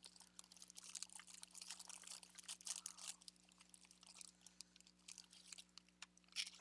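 Faint rustling and scattered light clicks of small paper craft embellishments being picked up and sorted by hand.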